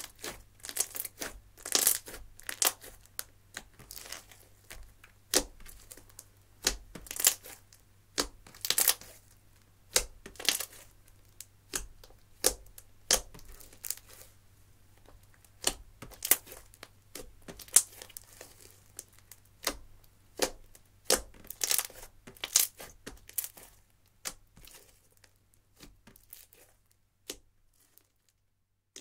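Thick slime with eyeshadow mixed in, squeezed and poked by hand, giving irregular sharp crackles and pops. The sounds thin out and stop shortly before the end.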